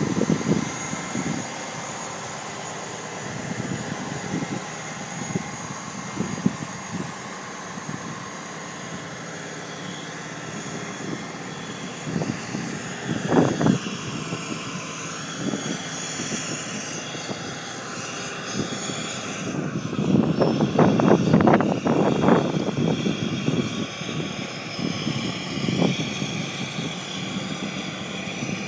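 Fire engines' diesel engines running steadily, with a short louder burst about halfway through and a louder stretch a few seconds long about two-thirds of the way through.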